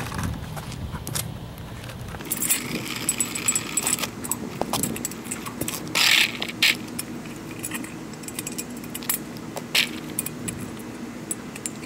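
Small metal parts clinking and jangling as a portable skate rail's height is adjusted, broken by a few sharp knocks.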